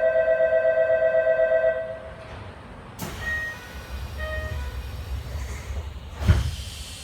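Electric departure bell ringing steadily with a fast pulse, cutting off about two seconds in. A few seconds later the commuter train's short door-closing chime sounds, over a low rumble, and the doors shut with a sharp thud near the end.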